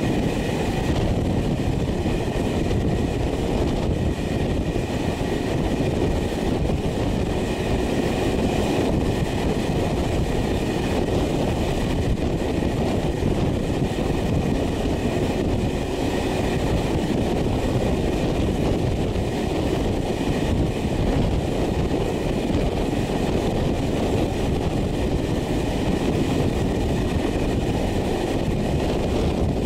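Passenger train running steadily along the track, heard from an open carriage window: a continuous rumble of wheels on rail mixed with rushing air.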